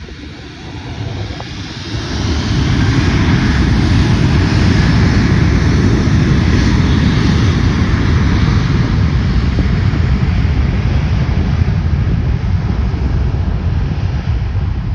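Korean Air Airbus A380's four jet engines at takeoff power: a loud, steady roar that swells about two seconds in and holds.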